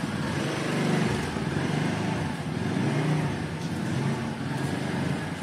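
Motorcycle engine running at low revs as the bike is ridden slowly, its pitch rising and falling a little with the throttle.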